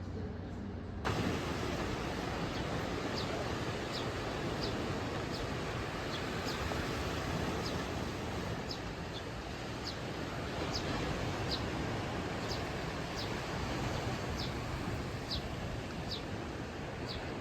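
Steady outdoor rushing noise that starts abruptly about a second in, with a short high falling chirp from a small animal repeating roughly once a second.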